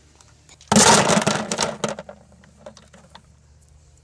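Small stones dropped into an empty white plastic 5-gallon bucket, a loud clatter of stones hitting the bottom about a second in, with the hollow bucket ringing as it dies away.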